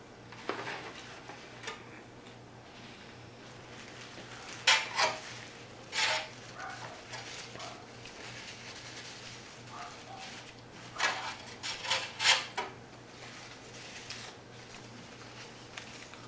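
Paper napkin being unfolded and crumpled in hand, crinkling in short bursts about five and six seconds in and again in a cluster around eleven to twelve seconds.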